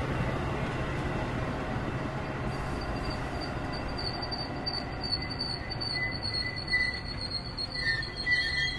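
Train brakes squealing over the low rumble of the rolling train. A high squeal sets in about a third of the way in, and lower, wavering squeals join it in the second half.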